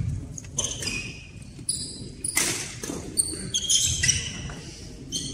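A doubles badminton rally: sports shoes squeak sharply on the hall floor several times as players move, mixed with the crisp smacks of rackets hitting the shuttlecock.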